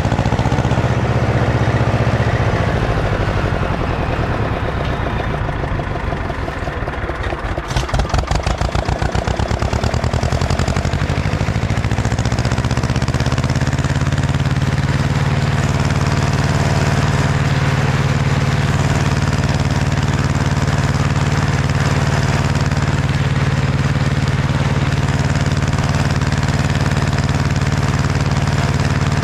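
Ursus C-335 tractor's diesel engine running. Its revs sag for a few seconds with a short stretch of rapid, even pulsing about eight seconds in, then it settles into a steady, even run.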